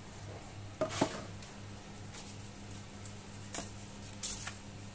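Handling noises on a wooden desk: the plastic 2.5" drive enclosure is set down with a couple of sharp knocks about a second in, then a few lighter taps and rustles as the paper leaflet is picked up near the end. A steady low hum runs underneath.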